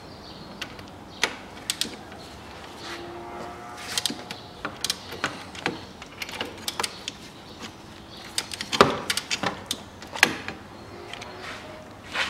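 Ratchet wrench with a 15 mm socket clicking in short, irregular runs, with light metal clinks, as the alternator mounting bolts are loosened.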